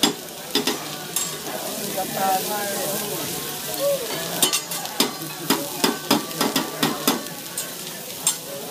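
Food sizzling on a teppanyaki steel griddle while metal spatulas tap and scrape on the plate in quick clatters, thickest from about four and a half to seven seconds in.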